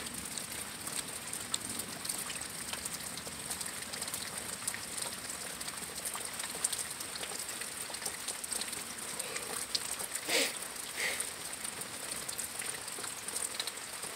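Light rain easing off at the tail of a thunderstorm: a soft steady patter of drops and drips with many small ticks, over a steady high-pitched hiss. Two brief louder noises come a little after ten seconds in.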